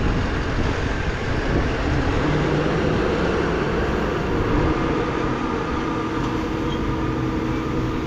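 Tractor engine running steadily under load as a forage wagon unloads chopped corn silage, with a steady hum coming in near the end.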